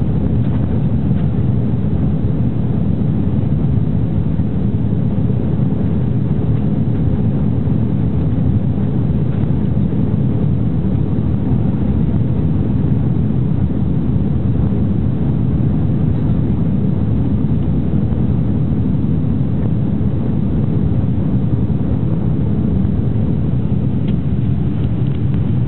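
Airbus A340 cabin noise in the climb after takeoff: a steady low roar of its four jet engines and the rushing airflow, heard inside the cabin by the window.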